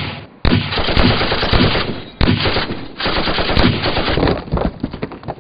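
Rapid machine-gun fire, long rattling bursts starting about half a second in, with brief breaks near two and three seconds, tailing off near the end.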